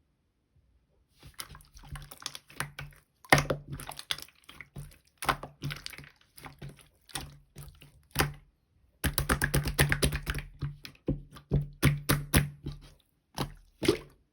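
Yellow clear slime being squished and pressed by hand, making rapid sticky clicks and small pops in bursts. It starts about a second in, with a brief pause past the middle.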